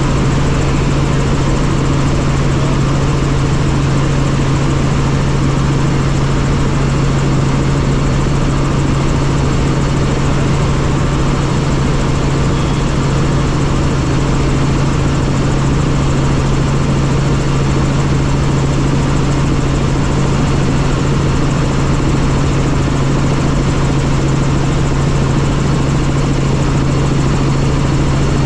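Helicopter in flight: a loud, steady drone of rotor and engine, with a strong constant low hum under an even wash of noise.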